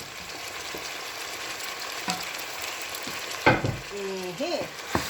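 Chicken drumsticks sizzling in hot red palm oil with onions and peppers as they are stirred in the pot, a steady frying hiss. A sharp knock, likely the spoon on the pot, comes about three and a half seconds in, with a lighter one near the end.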